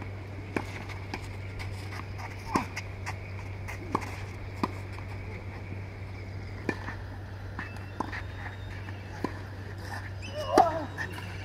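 Tennis racket strings striking the ball during a rally, sharp pops one to two seconds apart. Near the end, as a serve is struck, a short, loud yelp is heard.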